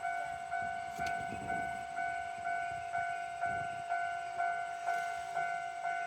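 Japanese railway level-crossing warning bell ringing, one steady tone repeated about twice a second.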